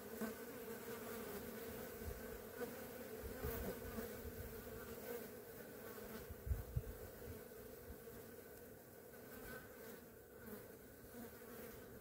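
Flies buzzing around a roadkill carcass: a faint, steady, wavering drone. A few soft low thumps come about three and six and a half seconds in.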